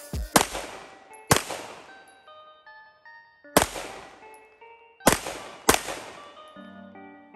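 Six shots from an FN 509 Tactical 9mm pistol at an uneven pace: two in quick succession at the start, then single shots about a second or more apart, each trailing off. Background music with held notes plays underneath.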